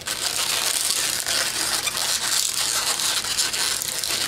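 Inflated gray 160 latex modelling balloons rubbing against one another as the bubbles are twisted and locked together, a steady, dense rubbing noise.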